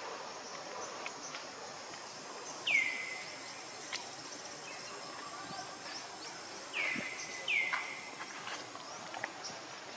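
Three short high-pitched animal calls, each dropping quickly in pitch and then held steady for a moment, the last two close together. They sound over steady outdoor background noise with a few faint clicks.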